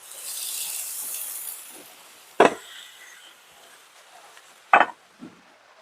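Seasoned yellowfin tuna sizzling as it goes on to cook, a hiss that is loudest for the first second and a half and then fades. Two sharp clinks come about two and a half and five seconds in.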